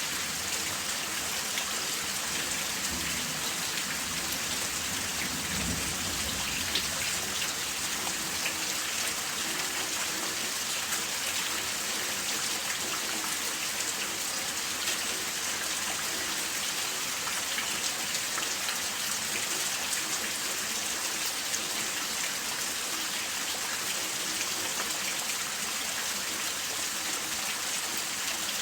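Steady rain falling, an even hiss with many fine drop patters on a surface.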